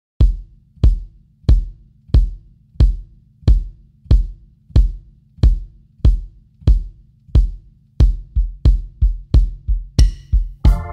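Tama bass drum with its stock batter head and unported stock resonant head, pillow inside, kicked with a single pedal. Even strokes come about one and a half a second, then speed up to about three a second near the end. Each stroke rings on low until the next.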